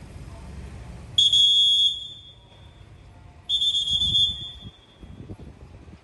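Two loud, steady, single-pitch whistle blasts, the first a little over a second in and short, the second about a second later and longer.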